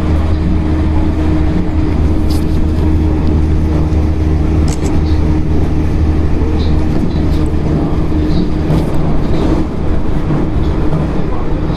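JR Central 313 series electric train running, heard from on board: a steady low rumble of the running gear with a steady hum above it. The deepest part of the rumble drops away about halfway through.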